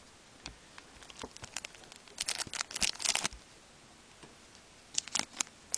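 Foil wrapper of a trading card pack crinkling as it is handled: a few light ticks, then a dense crinkling run of about a second, and a shorter one near the end.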